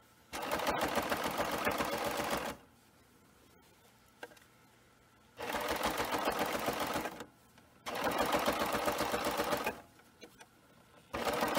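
Baby Lock Evolution serger stitching in four short runs, starting and stopping between them, its needles and loopers beating at a fast even rate as it sews binding onto a quilt edge. The last run starts near the end.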